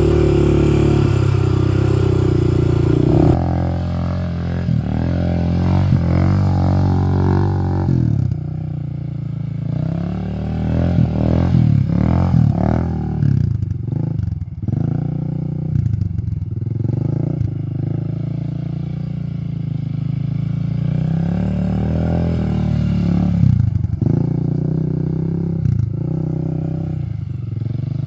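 Small quad (ATV) engine running, its pitch rising and falling again and again as it is throttled up and eased off while riding.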